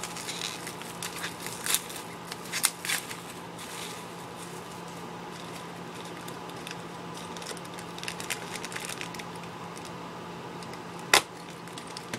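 Hands handling fingerboard packaging: scattered crinkles and light taps, with one sharp click about eleven seconds in, over a steady faint hum.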